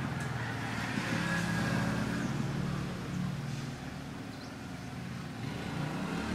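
A steady low engine rumble, with a slight dip and recovery in the second half.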